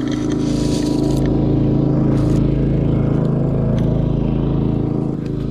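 An engine running steadily at a constant speed, with a few light knocks and rustles.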